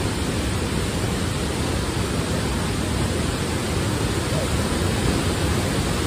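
Tall waterfall plunging into its pool: a steady, even rush of falling water that covers the low and high sounds alike and does not change.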